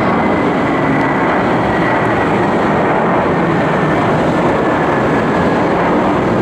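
Airbus A321 jet engines at take-off thrust during the climb-out: a steady, loud roar with a faint whine that slowly falls in pitch.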